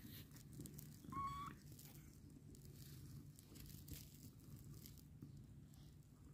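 A nursing kitten gives one short, high mew about a second in, over a low steady rumble and faint rustling of fur as the kittens suckle.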